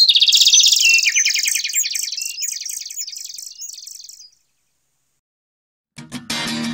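A fast, high chirping trill, bird-like, fading away over about four seconds. After a short silence, music begins near the end.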